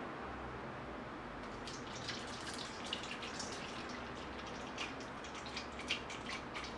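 Dissolved gelatin water poured from a frying pan into a stainless steel mixing bowl, trickling and splashing irregularly. The splashing picks up about two seconds in.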